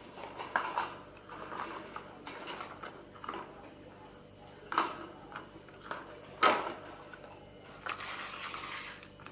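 A plastic feeding cup knocking and scraping against the bars of a wire pet cage as it is fitted in place: a string of short clicks and knocks, the loudest about six and a half seconds in, then about a second of rustling near the end.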